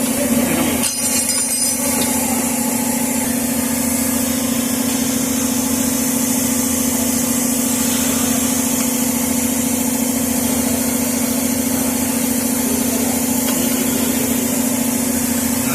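A steady, even machine hum from a running motor, with a brief rattle of metal clicks about a second in.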